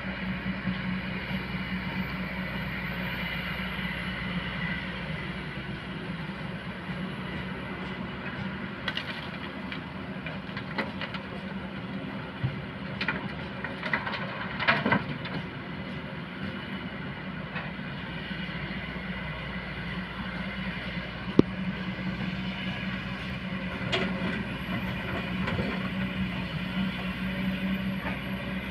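Kobelco excavator's diesel engine running steadily, with scattered clanks and knocks of machinery at work, a cluster of them through the middle and a single sharp knock about two-thirds of the way in.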